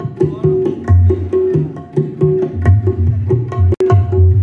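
Music with hand-drum percussion and heavy bass, played loud through a stacked PA sound system of tweeters and 10-, 15- and 18-inch speakers during a sound check. There is a brief cut in the sound near the end.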